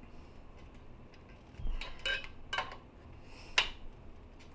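A wrench clinking against the metal AN fitting of a PTFE fuel hose being snugged down in a vise: four light, sharp metallic clicks in the second half.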